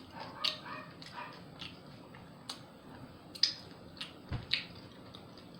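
Close-miked wet mouth clicks and chewing of a sandwich, scattered sharp taps, with a dog whining faintly in the first second or so.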